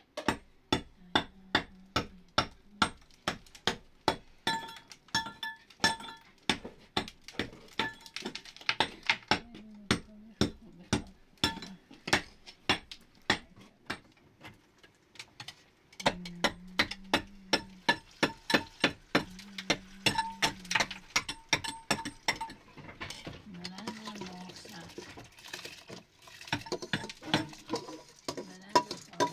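A hand tool striking brick or stone over and over: sharp clinking taps, about three a second, each with a brief ringing note.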